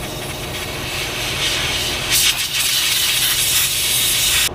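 Long, loud hiss of a pressurised spray aimed at the display's circuit board, growing louder about a second and a half in and cutting off sharply near the end.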